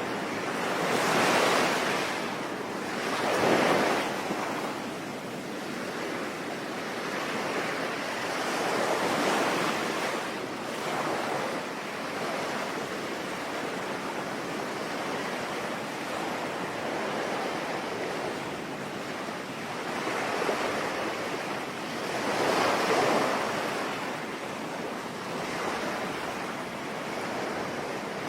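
Sea waves breaking and washing in over a steady hiss of rain. Two surges come close together near the start, a softer one about a third of the way in, and a loud one about three-quarters through.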